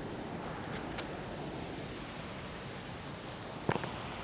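Steady background hiss with a few faint clicks, the sharpest one near the end.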